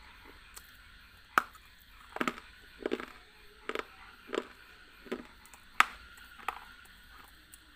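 Close-miked crunching as a person bites and chews a hard, brittle piece of food: a string of short, sharp crunches, roughly one every 0.7 s, the sharpest about a second and a half in and near six seconds.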